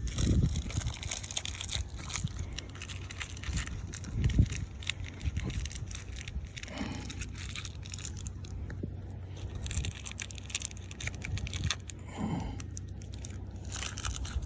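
Handling noise as plastic wall anchors are pushed by hand into drilled holes in wood: irregular rustling and crinkling with small clicks, and a louder knock about four seconds in.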